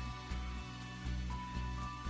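Background music with a steady beat: a deep bass pulsing about twice a second under held higher notes.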